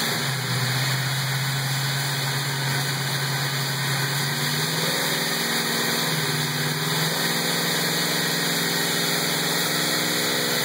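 1450-horsepower Chevrolet Chevelle's engine idling on a chassis dyno, its pitch rising a little about five seconds in and settling back about two seconds later.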